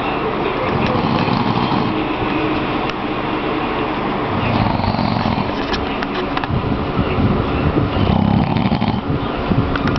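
A man snoring loudly, a rough low rumble in long breaths that swell louder in the second half.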